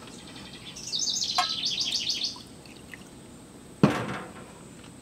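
A songbird singing a quick run of repeated high chirps for about a second and a half. About four seconds in comes a single sharp clink, a spoon knocking against a small cup.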